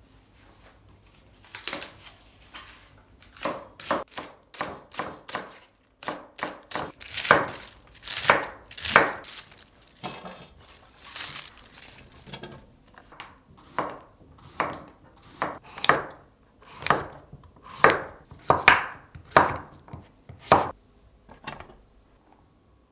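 A series of sharp knocks and taps on a hard surface, irregular and roughly one a second, with some in quick pairs, typical of kitchen work such as knife strokes on a cutting board.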